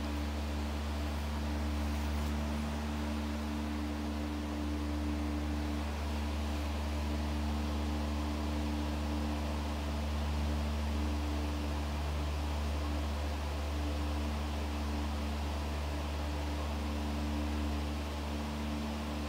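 Steady low hum with a constant hiss, unchanging throughout, with no distinct clicks or knocks: background room noise of a running machine or electrical hum.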